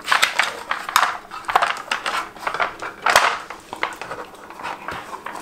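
Nina Ottosson Dog Tornado plastic puzzle clattering and clicking as a puppy paws and noses its spinning layers: irregular knocks of hard plastic on plastic and on the floor, the loudest about three seconds in.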